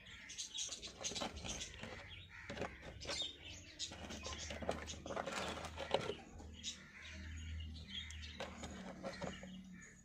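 Birds chirping in short, repeated calls, with a faint low hum underneath.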